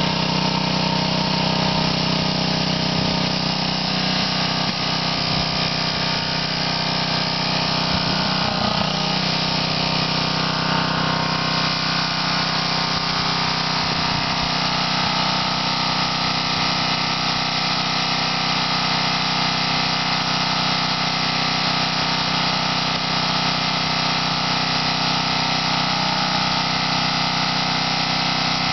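Honda walk-behind lawn mower's four-stroke engine left running steadily while the grass bag is off.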